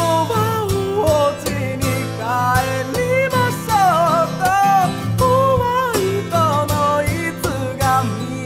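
Singing in Japanese over a strummed steel-string acoustic guitar, played in the percussive slam-strumming style.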